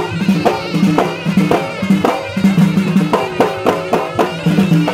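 Moroccan Alaoui folk music played live: a shrill reed pipe (ghaita) melody over a driving drumbeat.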